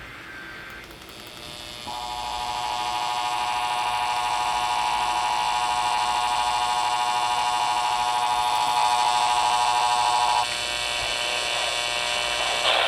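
Emergency Alert System two-tone attention signal from a radio station's encoder-decoder, a buzzy, barber-shop-sounding chord of tones. It starts about two seconds in, holds steady for about eight seconds, then cuts off, leaving faint radio hiss.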